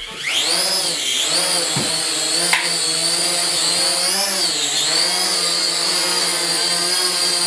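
Swift Stream Z-17 toy quadcopter's propeller motors spinning up and whining, the pitch rising at the start and then dipping and climbing with the throttle before settling into a steady whine.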